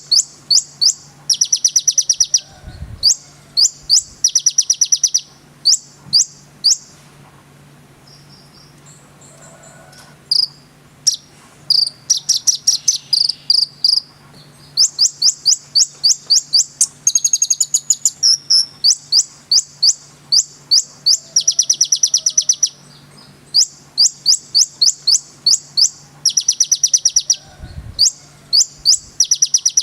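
Konin singing: fast runs of sharp, high chirps repeated in quick series, with a quieter stretch about a third of the way through, over a faint steady low hum.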